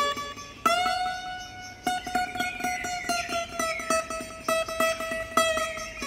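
Nylon-string classical guitar fingerpicked in a blues jam: quickly repeated plucked notes, with a strong note struck a little after half a second in and left ringing under them.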